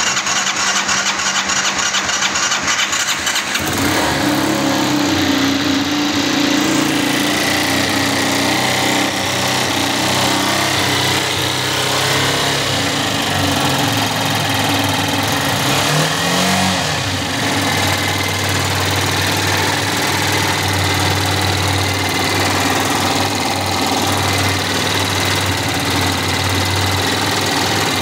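200cc water-cooled auto rickshaw engine being cranked on its electric starter. It catches about three and a half seconds in and then runs steadily, with one short rev about halfway through. This is its first start after new piston rings were fitted.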